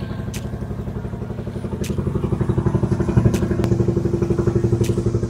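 Engine of a motorized bangka outrigger boat running steadily under way, a fast even pulsing that gets a little louder about two seconds in. A few sharp clicks sound over it.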